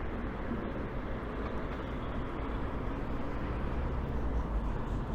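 Steady outdoor street noise: the low, even rumble of road traffic, with no single sound standing out.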